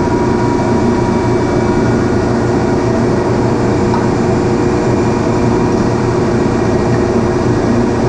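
Industrial ammonia refrigeration compressor running, a loud steady drone with constant tones in it that holds unchanged throughout.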